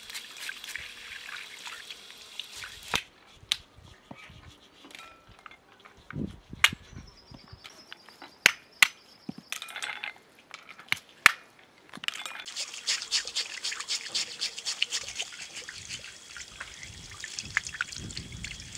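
Water pouring over a fish as it is scrubbed with a plastic brush, then a quieter stretch of sharp knocks, several seconds apart, as walnuts are cracked in a brass mortar, then water pouring again from about twelve seconds in as the fish is rinsed.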